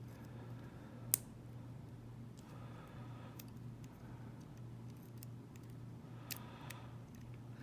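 Metal lock picks and tension tool working in a Winkhaus euro cylinder: scattered faint clicks and two sharp clicks, about a second in and near the end, over a steady low hum.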